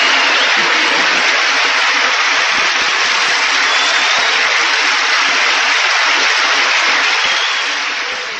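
Audience applauding loudly after the punchline, a dense, steady clapping that begins to fade near the end.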